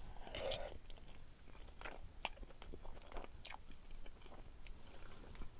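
A person slurping a forkful of black bean sauce noodles about half a second in, then chewing quietly with small wet mouth clicks.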